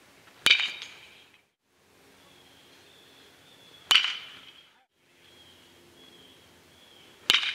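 Baseball bat hitting a pitched baseball three times, each contact a sharp crack that rings briefly.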